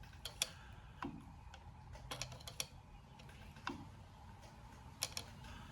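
A handful of faint, short light clicks at irregular intervals, over a low, quiet background.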